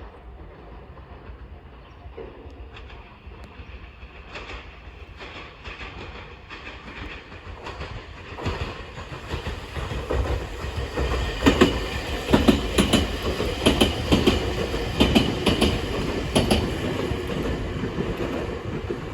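Meitetsu 9500 series electric train approaching and passing: a low rumble builds, then wheels clack over the rail joints, growing much louder from about eight seconds in and loudest in the second half.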